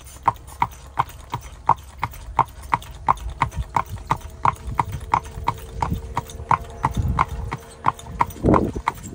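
A harness horse's hooves clip-clopping on a paved road at a steady trot, about three even beats a second, with a low rumble from the buggy under them and a short louder sound near the end.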